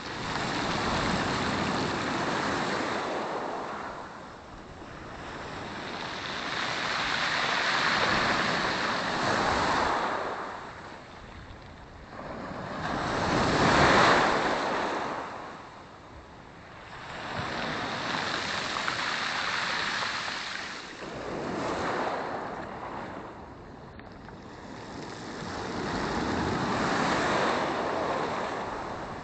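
Black Sea waves breaking and washing up a pebble beach, surging and falling back every four to six seconds, the loudest surge about halfway through.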